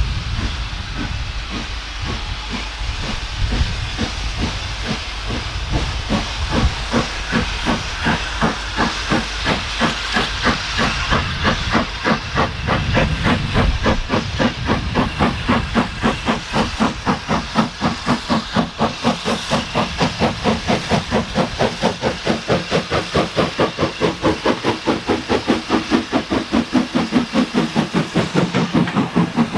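Steam locomotive working under steam: a steady run of exhaust chuffs, about three a second, with a hiss of steam, the beats growing stronger and clearer over the first several seconds.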